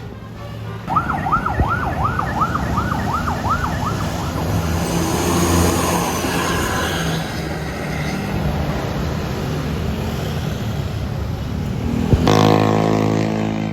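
A passing tour bus's custom horn gives a rapid run of about eight rising siren-like whoops, roughly three a second, followed by the loud rush of the bus's engine and tyres going by. Near the end a loud sustained multi-note tone cuts in.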